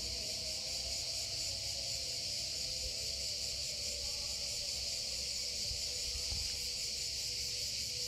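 Cicadas droning in one steady, high-pitched, unbroken buzz, with faint lower tones beneath.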